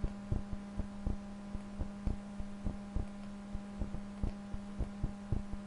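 Steady background hum with short, low knocks repeating at an even pace of roughly three a second.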